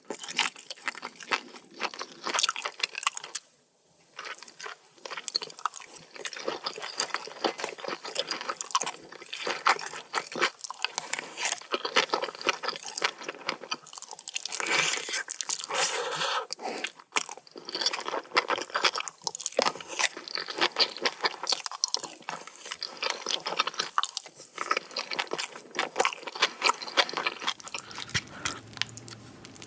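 Close-miked eating of king crab: crunching and chewing with many sharp clicks and crackles, pausing briefly near the start.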